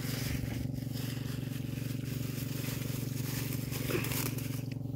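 An engine hums steadily underneath, with a rustling hiss over it that stops abruptly near the end.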